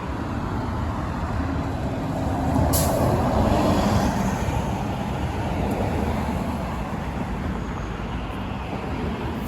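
Street traffic with a heavy vehicle passing close by, loudest about three seconds in, with a short high hiss at its peak.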